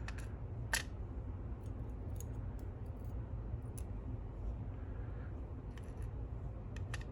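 A few sparse, light clicks and ticks of small lock pin springs being taken out of a disassembled lock and set down, the sharpest about a second in, over a low steady hum.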